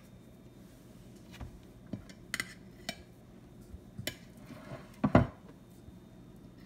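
Kitchen knife clinking and scraping against a plate while cutting and lifting soft kabab mixture: a series of short sharp clicks and knocks, the loudest about five seconds in.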